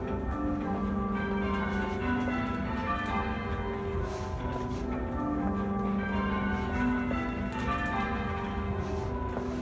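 A ring of church bells being rung in changes, the bells striking one after another in a steady continuous stream, their tones overlapping and hanging on. Heard from the ringing chamber below the bells, with the ringers pulling the ropes.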